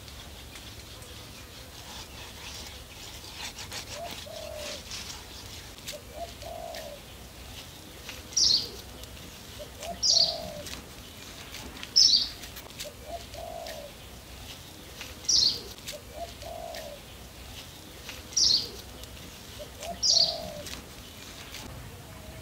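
Birds calling: a short, high-pitched call repeated every two to three seconds from about a third of the way in, the loudest sound, together with a lower repeated cooing note.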